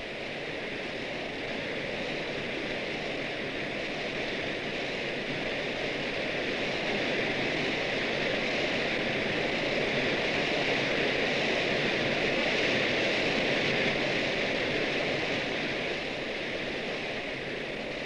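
A waterfall's steady rushing water, swelling a little louder through the middle and easing slightly near the end.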